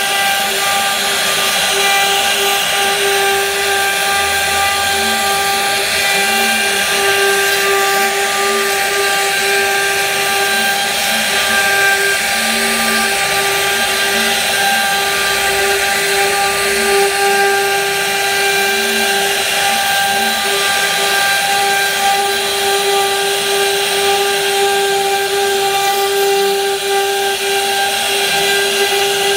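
CNC router spindle running with a steady high whine while its cutter carves a relief pattern into a wooden panel, with an even hiss of wood being chipped away.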